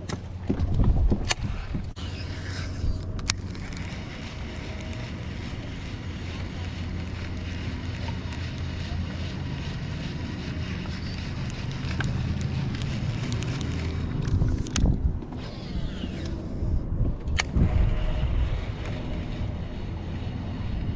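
Wind buffeting the microphone on a fishing boat, over a steady low hum, with a few sharp clicks scattered through.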